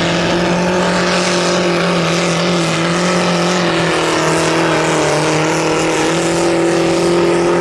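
Compact diesel pulling tractor running flat out under full load as it drags a weight-transfer sled. The engine note holds steady at high revs, sags slightly midway through the pull and climbs again near the end.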